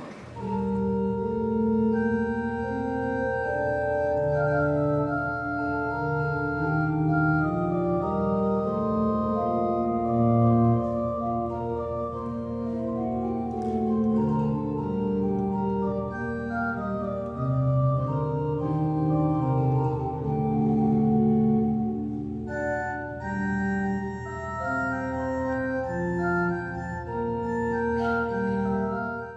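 Organ music: slow held chords moving over a steady low pedal note, with higher notes joining in for the last few seconds; it starts and stops abruptly.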